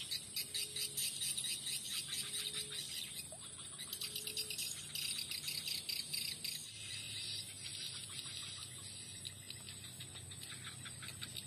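Insects chirping in a dense, pulsing chorus over a steady high whine, thinning out after about seven seconds. A short low call sounds three times in the first five seconds.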